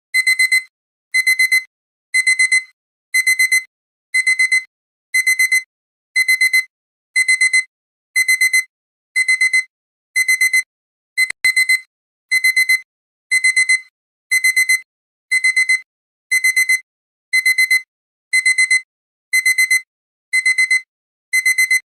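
Digital alarm-clock beeping that signals a countdown timer has reached zero: a high-pitched beep-beep-beep-beep burst about once a second, repeating steadily.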